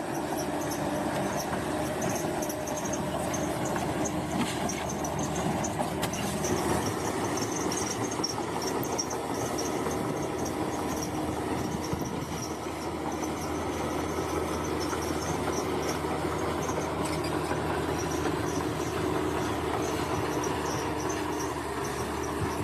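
Bulldozer at work: its diesel engine running steadily under load, with clatter from its steel tracks.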